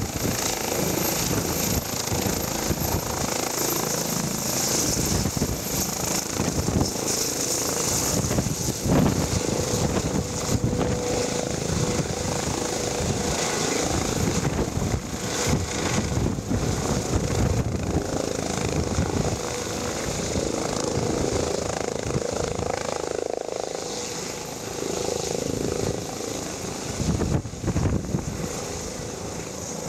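Eurocopter EC135-family twin-turbine helicopter with a fenestron tail rotor, hovering low and turning in place: a steady rotor and turbine din with a high whine. Irregular low gusts of rotor downwash buffet the microphone.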